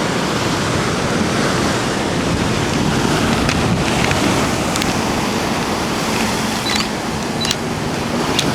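Big ocean surf breaking against a lava-rock jetty: a steady, loud rush of churning water, with wind on the microphone. A few sharp clicks sound in the second half.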